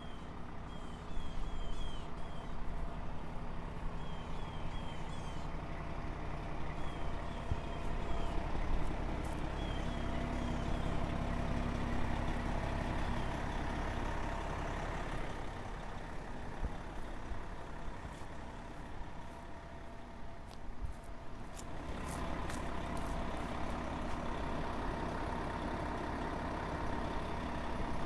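Fire engine's diesel engine running at low speed, a steady low rumble that eases off for several seconds in the middle and then comes back.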